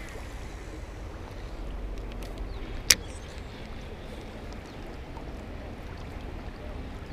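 Steady rush of high water running through a nearly wide-open dam, with a single sharp click about three seconds in.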